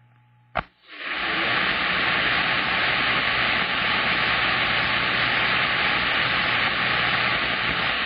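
Radio receiver static: a short click about half a second in, then a steady, even hiss on the channel with no voice on it.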